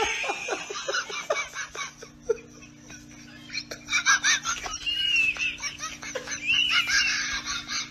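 Kittens mewing in short, high squeaks over a faint steady hum.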